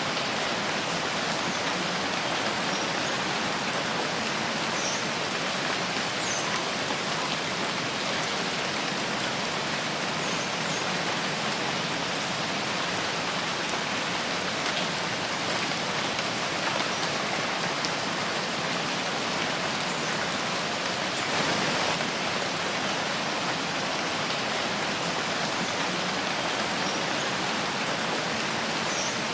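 Steady rain falling in a forest, a dense even patter of drops that swells briefly about two-thirds of the way through.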